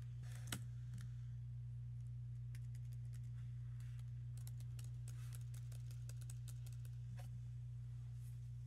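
Faint, scattered key clicks of a laptop keyboard being typed on, a cluster of them about three to five seconds in, over a steady low hum.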